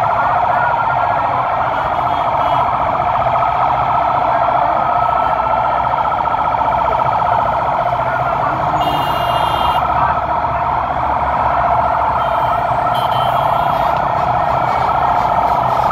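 Many vehicle sirens wailing at once, their rising and falling tones overlapping into a dense, continuous warble over a low rumble of engines. A short, high steady tone cuts in about nine seconds in and again near thirteen seconds.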